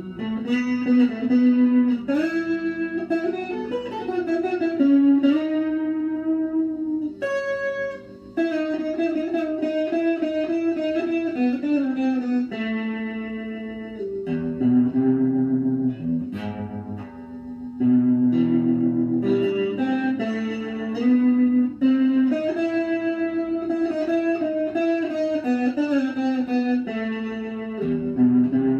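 Electric guitar played solo: melodic single-note lines with held notes and a few string bends, briefly dropping off about eight seconds in.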